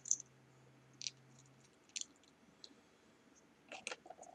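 Plastic LEGO bricks clicking and tapping as they are handled and pressed together: a few faint, sharp clicks roughly a second apart, with a quick cluster near the end.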